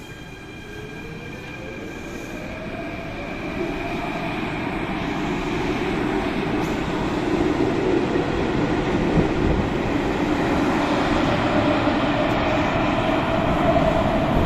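Athens Metro second-generation train accelerating away from an underground platform. Its motor whine rises steadily in pitch, and the running noise of the cars passing grows louder over the first half, then holds.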